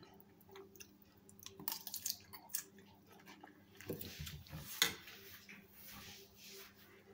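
Quiet eating sounds: a fork stirring through a lettuce salad on a china plate, with scattered light clicks, the sharpest nearly five seconds in, and soft chewing.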